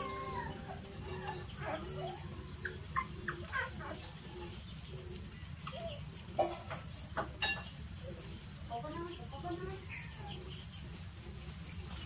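Steady, high-pitched insect trilling, with scattered short chirps and squeaks over it and two sharp clicks about six and a half and seven and a half seconds in.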